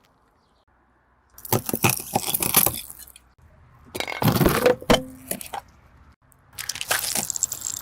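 Brittle objects crunching and cracking under a car tyre, in three separate bursts of dense snapping: about a second and a half in, around four seconds in, and near the end.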